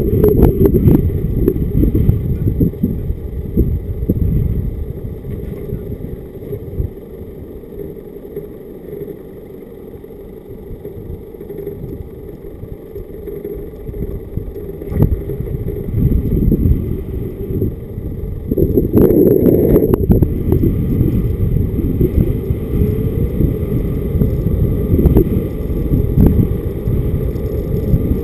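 A car driving with wind rumbling on the microphone of a camera mounted outside on the car, over the engine and tyre noise. The rumble eases for several seconds in the middle and then builds again.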